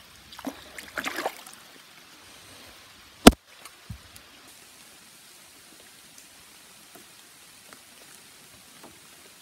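Water splashing and trickling around a hand in a pond for about the first second, a single sharp click about three seconds in, then a faint steady hiss of rain falling on the pond surface.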